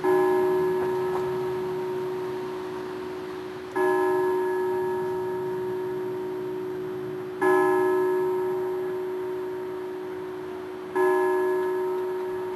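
A large clock-tower bell striking the hour, tolling slowly: four strokes about three and a half seconds apart, each ringing on and fading before the next.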